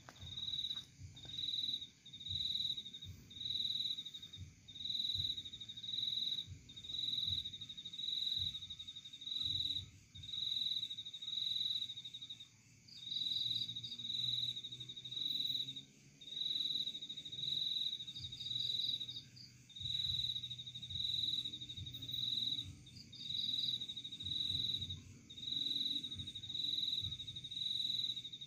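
A cricket chirping in long, evenly spaced chirps, a little under one a second, each a rapid high-pitched trill. A few short, higher ticking bursts sound now and then, over faint low rustling.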